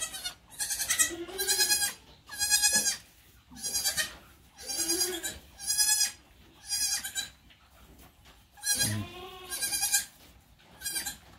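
Newborn goat kids bleating over and over in short, high calls, about ten of them, with one deeper call about nine seconds in.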